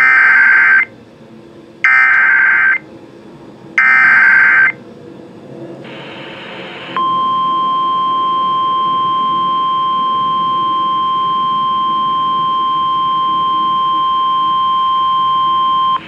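Emergency Alert System flash flood warning coming over an FM radio station. It opens with three bursts of digital header data tones, each just under a second long. Then comes about a second of static, and from about seven seconds in a steady attention tone holds.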